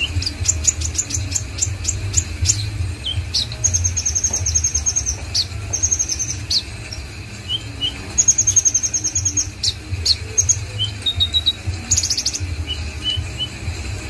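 Black sunbird (kolibri ninja) singing energetically: quick, thin, high chirps and sharp sweeping notes, broken by several fast, even trills of high notes, over a steady low hum.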